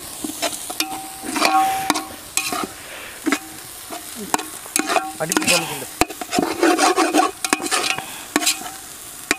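A ladle stirring and scraping a frying biryani masala of onions, tomatoes and ginger-garlic paste in a large cooking pot, with irregular scrapes and knocks against the pot, some ringing briefly, over a steady sizzle.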